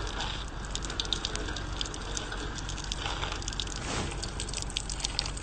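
Faint rustling and crackling with many small scattered clicks: handling noise on the microphone of a phone carried while walking.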